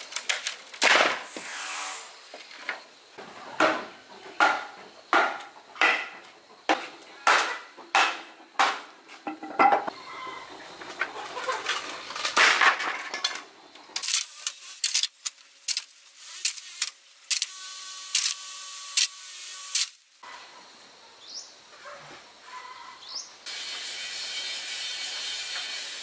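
Repeated knocks and clatter, about one a second, as of hands working with hard objects; then several seconds of steady high tones, and a steady hiss near the end.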